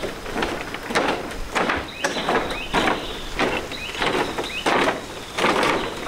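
Footsteps on a woven bamboo footbridge, about two steps a second, with the bamboo slats and poles creaking and squeaking under each step.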